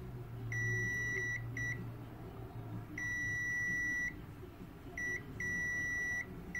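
ANENG Q1 multimeter's continuity beeper giving a steady high beep five times, some long and some short blips, as the probe makes and breaks contact across a capacitor. The meter reads close to zero ohms: the capacitor is shorted.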